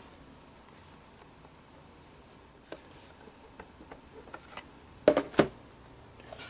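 Hands handling a Mac Mini: a few light clicks and taps, with a cluster of sharper knocks about five seconds in.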